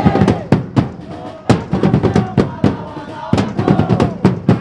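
Supporters' drums beaten in a fast, loud rhythm, several strikes a second, with a crowd of fans chanting along in unison.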